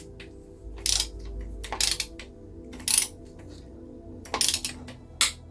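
Sharp metallic clinks and rattles of a socket wrench being fitted and worked on the Reliant engine's bolts as they are torqued down in sequence, about five in all, with faint background music under them.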